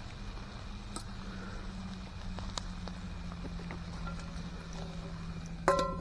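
A few faint ticks of a wood campfire over a low steady hum. Near the end comes a single loud, ringing metal clank as the stainless camp pan and its folding wire handle are handled.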